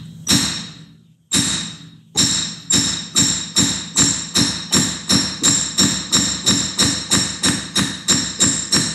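Claw hammer striking the end of a CV axle to drive the greased CV joint onto the shaft's splines, each blow with a short metallic ring. Two blows in the first second and a half, then a steady run of about three blows a second.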